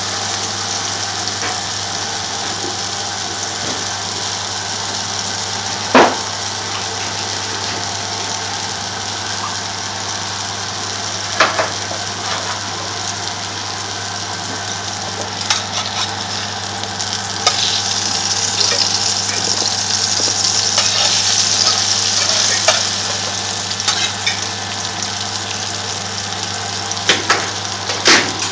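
Minced-meat shami kababs shallow-frying in a little oil in a frying pan: a steady sizzle with occasional sharp pops, the loudest about six seconds in, and the sizzle growing stronger for a few seconds past the middle. A low steady hum runs underneath.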